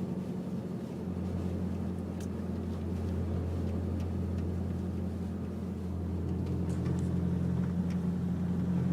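Small pickup truck heard from inside the cab while driving: a steady low engine and road drone.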